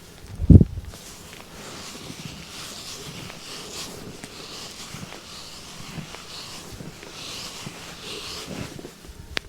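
Hands rubbing and sliding over skin during a deep-tissue back massage: an irregular rustling swish, with one dull thump about half a second in.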